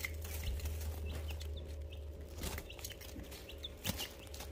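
Young chicks, about two and a half weeks old, peeping with many short, high chirps at close range. A few sharp clicks come from pecking at a galvanized metal feeder, and a low rumble runs underneath.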